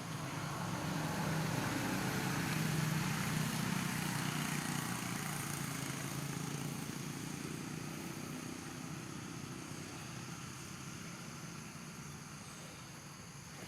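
A motor vehicle engine passing, growing louder over the first few seconds and then slowly fading away.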